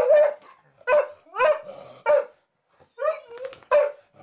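Large dog barking again and again, about six loud barks roughly half a second apart, several sliding up and down in pitch, with a longer drawn-out bark about three seconds in.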